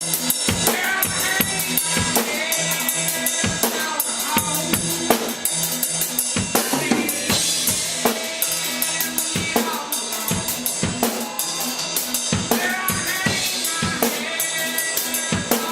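Live band playing, with the drum kit loudest: kick and snare hits keeping a steady beat over held bass notes and sliding higher instrument lines.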